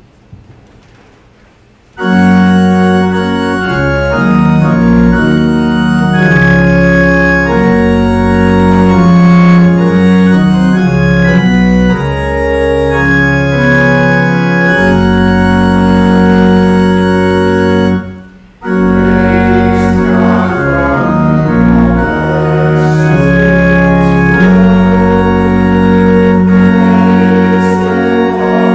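Church organ playing slow, sustained chords with a deep bass, starting about two seconds in and pausing briefly around two-thirds of the way through before going on.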